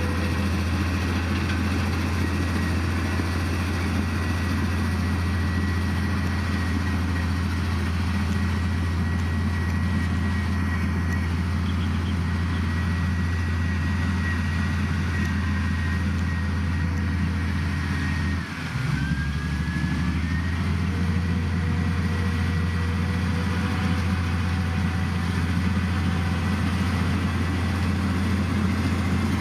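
Heavy diesel engine of earth-moving machinery running steadily, with a thin high whine over the deep engine note. About two-thirds of the way through, the note dips briefly and then recovers.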